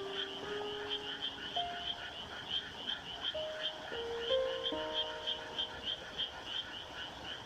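A chorus of frogs calling, short croaks repeating about three times a second in a steady run. Slow, soft piano notes sound underneath.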